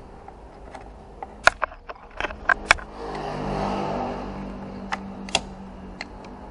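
Sharp clicks and taps of a radiator hose and its fittings being handled: a quick run of about six near the start and a few scattered ones later. A low hum swells and fades in the middle.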